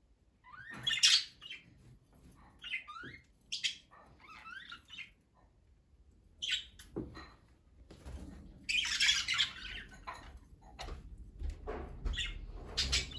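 Budgerigars chirping and chattering in short, scattered calls, with a denser burst of squawky chatter about nine seconds in.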